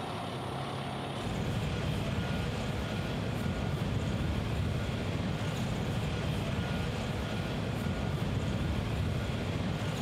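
Construction-site ambience: a steady low rumble of heavy vehicle and machinery engines, which gets louder about a second in, with a faint high tone coming and going.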